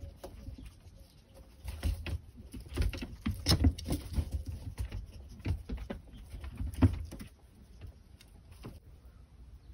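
Rabbit moving about at the wooden sill of its straw-bedded hutch: irregular scratching and knocking of claws on the wood with straw rustling. The sharpest knocks come about three and a half seconds in and again just before seven seconds.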